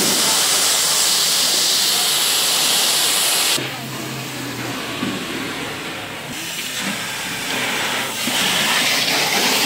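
Pressure washer jet hissing as it sprays water onto a car's roof and windows. The hiss drops quieter a little over a third of the way in and is loud again near the end.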